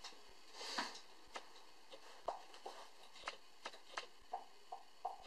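Light, irregular clicks and taps of a plastic quadcopter shell and its wiring being handled, with a brief rustle just under a second in.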